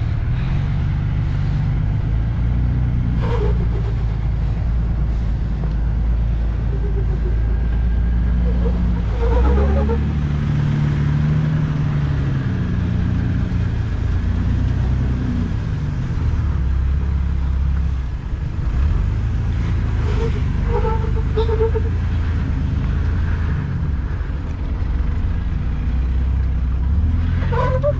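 Off-road vehicle's engine running steadily at low revs, its pitch rising and falling as the throttle changes, with a few brief sharper sounds here and there.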